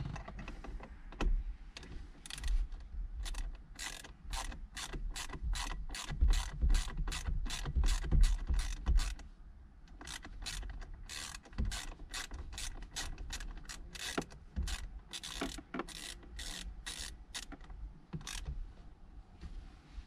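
Socket ratchet clicking steadily through repeated short strokes as fasteners on a steering wheel hub are done up by hand, in two spells with a short pause near the middle.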